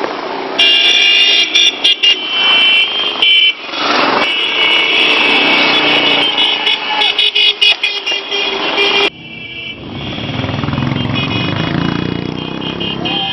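Motorcycles riding past with horns honking repeatedly, in many short and long blasts, over engine noise. After about nine seconds the horns stop and a low, steady engine rumble carries on.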